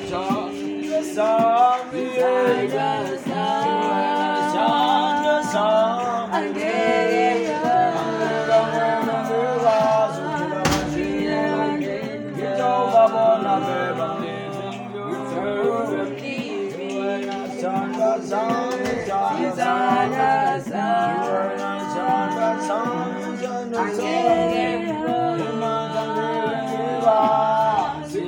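A group of male voices singing unaccompanied in close harmony, holding chords and moving from note to note together.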